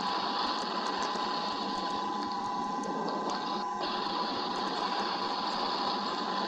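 Steady hiss of rain on an outdoor nest camera's microphone during a thunderstorm, with a faint steady whine from the camera's audio and light ticking; a brief dropout about halfway through.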